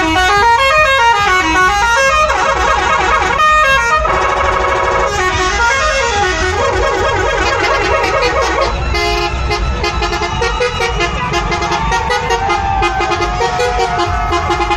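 Tourist buses' multi-tone horns sounding as the buses pass, first gliding up and down in repeated sweeps, then holding several notes at once. The buses' diesel engines rumble underneath.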